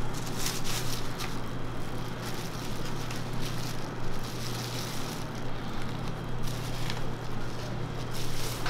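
Crackling and rustling of plastic-gloved hands handling a crepe and a paper wrapping cone, with scattered light clicks, over a steady low hum of shop equipment.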